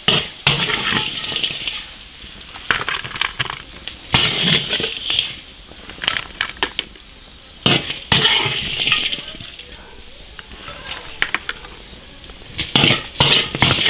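Metal spatula scraping and clinking against an iron wok of stir-fried spare ribs, with some sizzling. The scrapes come in short strokes every second or two.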